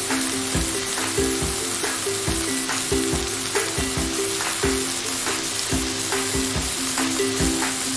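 Chicken pieces sizzling on a hot grill grate, a steady frying hiss, under background music with a simple melody and a regular beat.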